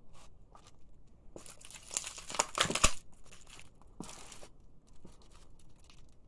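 A garlic bulb crushed under a sneaker on a hard floor: its papery skin crackles and crinkles. There is a dense run of crackling with one sharp snap between about one and a half and three seconds in, and a shorter burst about four seconds in.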